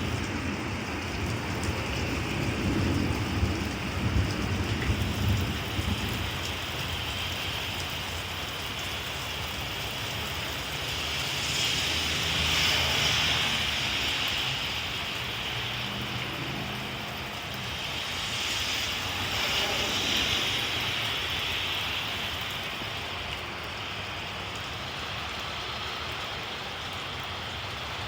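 Heavy, steady rain during a thunderstorm, with a low rumble of thunder in the first few seconds. The hiss swells louder twice, about twelve and nineteen seconds in.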